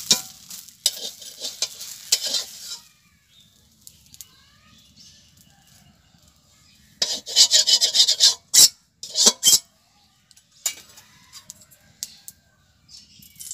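Pitha frying with a sizzle in an oiled iron kadai while a metal spatula scrapes and clicks against the pan, lifting the pitha out. The sizzle stops after about three seconds. Around seven seconds in comes a few seconds of loud scraping and clattering of the pan and utensils, and the sizzle starts again at the very end as fresh oil goes into the hot pan.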